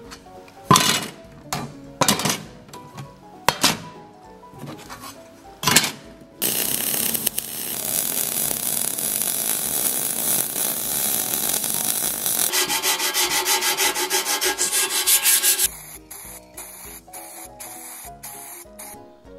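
Sheet-metal fabrication noises: about five short, loud tool bursts on steel sheet in the first six seconds. Then electric arc welding crackles steadily for about six seconds, followed by a few seconds of fast pulsing noise. Near the end only soft background music remains.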